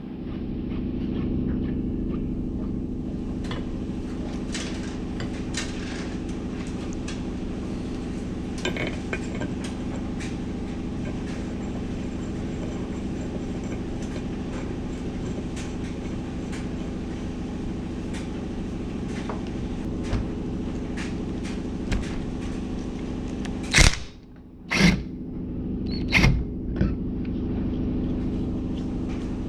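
A steady low mechanical hum with several pitched tones, with scattered light clicks of tools being handled and a few sharp knocks near the end.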